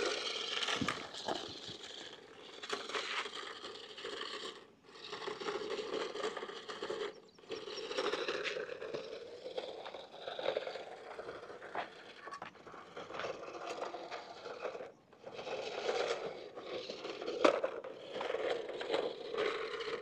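Toy RC bulldozer's small battery-powered motor and gears whirring as its plastic wheels roll and scrape over rough asphalt, in runs of a few seconds with brief stops between.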